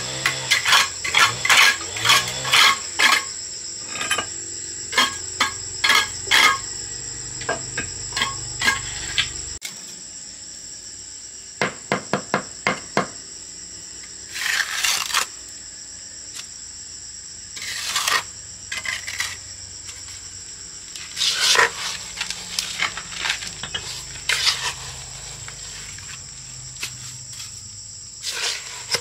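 Insects droning in a steady high tone throughout, with many sharp clicks, knocks and clinks that come thick in the first third and sparser after, plus a few short scraping sounds.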